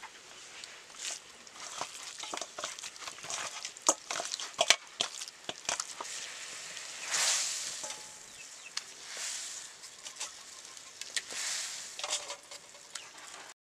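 Raw chicken leg pieces being handled and rubbed with spice in a steel bowl, with clicks and knocks against the metal. Near the end the chicken sizzles in hot oil in a wok.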